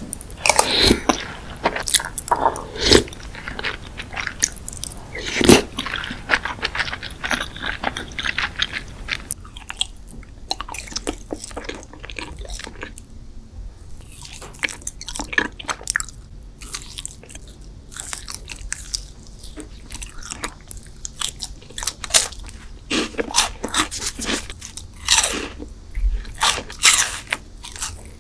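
Close-miked eating sounds: crunchy bites and chewing of sweet desserts, with many sharp crackles. About nine seconds in, the background hiss drops away and the bites continue from a different eater.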